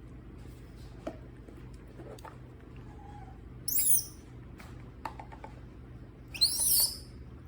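Newborn baby monkey giving two short, very high cries that waver in pitch, about three seconds apart, the second a little longer; faint clicks of handling between them.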